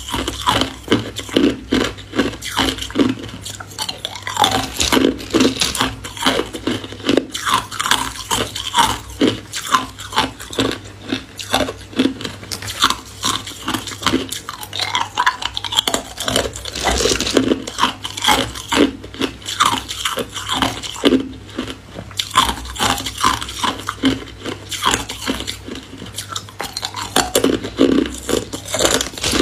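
Hard ice cubes being bitten and chewed, a fast, uneven run of sharp cracks and crunches with short pauses. Near the end, metal tweezers rattle among ice cubes in a plastic bag.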